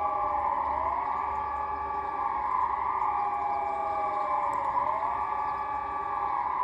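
Several electronic civil-defence sirens sounding together during a siren test, their tones overlapping. One siren's pitch falls slowly and sweeps back up about every four seconds.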